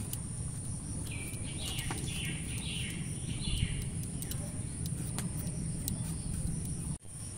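Birds chirping in a short run of calls over a steady low background noise, with a few faint clicks from a knife blade scraping potato skin.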